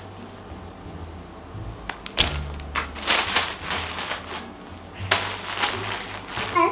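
Faint background music with a low bass line; from about two seconds in, bursts of rustling, crinkling noise come and go.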